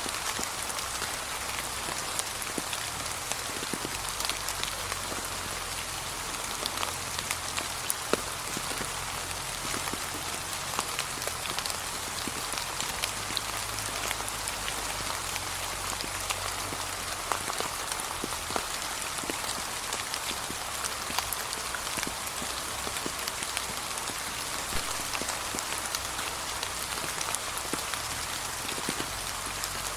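Gentle rain falling steadily on fallen autumn leaves, an even patter with many separate drops ticking throughout.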